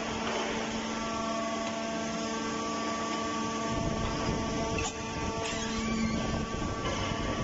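Hydraulic forging press running: steady hum and whine from its hydraulic pump and motor, with several held tones over a rumbling low end that grows fuller about halfway through.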